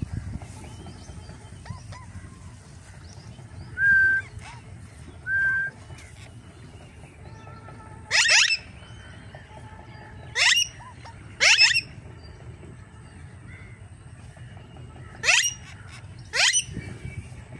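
Young lutino rose-ringed parakeet calling: two short level whistles, then five loud harsh screeches, each sweeping sharply upward at its start.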